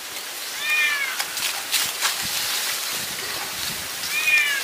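A cat meowing twice, once about half a second in and again near the end, each a short arched call. In between come a few light clicks and knocks as stones are set into the ground.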